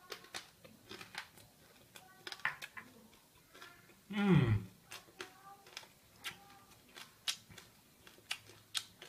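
Close-up crunching and chewing of crisp deep-fried frog wrapped in a mango leaf: irregular sharp crackles throughout, with a brief falling vocal sound about four seconds in.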